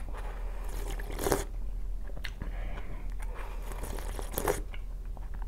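Close-up slurping and sipping of cheap instant broth from a glass mug, with two louder slurps about a second in and again around four and a half seconds in, and quieter swallowing and mouth noises between.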